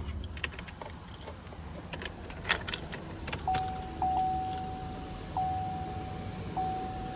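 Metal clicks and clinks of a wrench and cable clamp as the truck's battery terminal is reconnected. About three and a half seconds in, a steady electronic tone starts, broken by short gaps, as power comes back to the truck.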